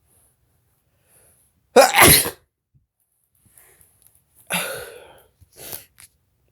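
A person sneezing hard twice, brought on by chhinkni sneezing powder. The first sneeze comes about two seconds in and is the loudest; the second, about four and a half seconds in, tails off. A shorter, smaller burst follows near the end.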